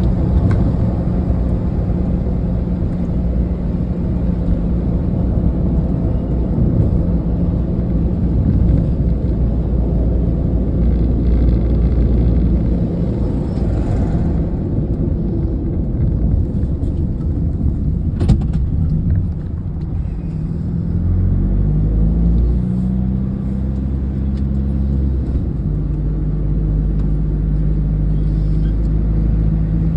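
Car engine and road rumble heard from inside the cabin while driving. The engine note shifts and rises a little after about twenty seconds as the car picks up speed. There is a single sharp click about eighteen seconds in.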